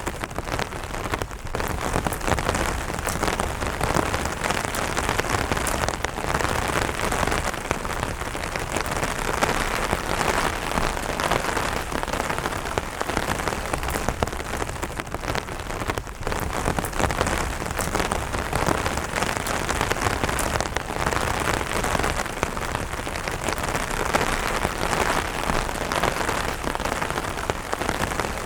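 Light rain falling on an umbrella: a steady, dense hiss of drops with many small individual taps on the fabric.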